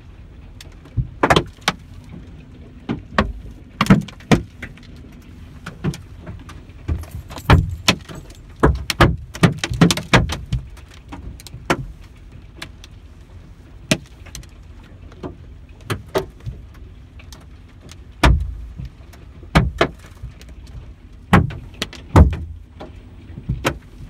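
Hailstones hitting a truck's roof and windshield, heard from inside the cab: irregular sharp bangs and clicks, thickest about a third of the way through, over a steady low rumble.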